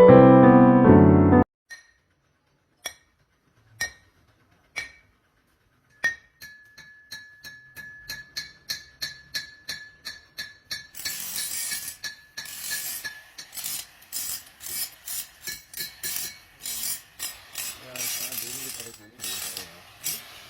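Piano music that stops about a second in, followed by metalworking sounds: single sharp metallic clicks, then a faint steady high whine with clicks coming about twice a second, and in the second half louder, noisier strokes at about the same rate.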